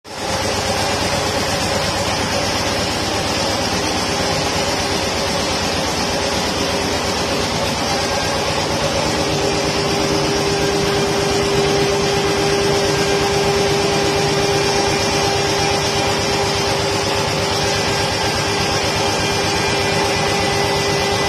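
Sun-1325B CNC router's spindle running and its bit cutting a relief carving into an MDF board: a steady mechanical whine over the noise of the cut, the whine standing out more from about nine seconds in.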